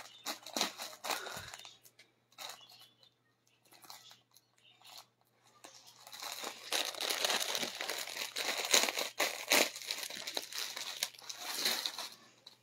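Clear plastic packets crinkling and rustling as fabric is handled and pulled out of them. There are scattered rustles at first, then steady crinkling from about halfway through.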